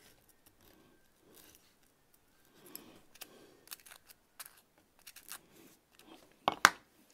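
Pen-style hobby knife scraping and cutting a strip of Styrodur foam in faint scratchy strokes, with a sharp click about six and a half seconds in.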